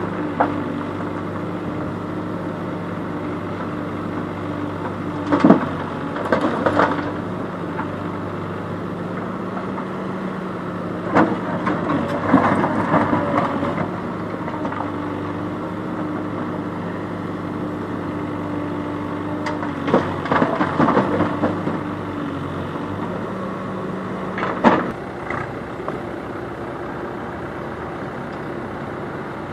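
CASE backhoe loader's diesel engine running steadily under work, with loud clattering of rocks and gravel four times as the backhoe bucket digs into the pile and tips its load into a tractor trailer.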